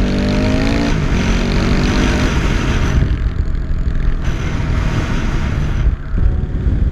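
Dirt bike engine pulling hard, its pitch rising through the first second and dropping at a gear change, then running on under heavy wind noise buffeting the helmet-mounted microphone.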